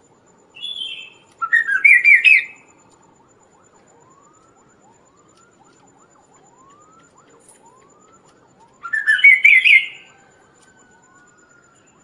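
Chestnut-capped babbler (kaso-kaso) song: two loud, rapid chattering phrases about seven seconds apart, the first led in by a short higher note. Faint rising whistled notes repeat about every half second between them.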